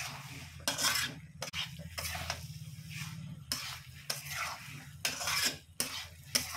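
A metal spatula scraping and clacking against a kadhai as thick minced meat and liver with peas is stirred on high heat, in irregular strokes about every half second to a second. The food sizzles lightly and a steady low hum runs underneath.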